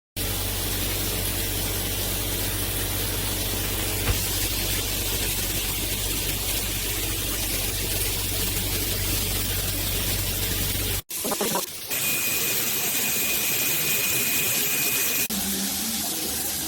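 Water spraying steadily from an 8-inch all-metal rainfall shower head, in three edited stretches with sudden breaks about eleven and fifteen seconds in. In the middle stretch a faint, high, steady whistle runs under the spray.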